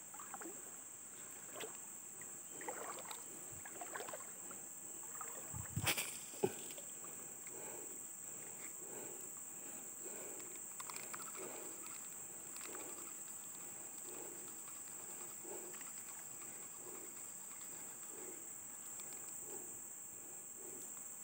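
Spinning fishing reel being cranked to retrieve a cast lure, a soft swish about every 0.7 s, over a steady high-pitched insect chorus. A sharp knock comes about six seconds in.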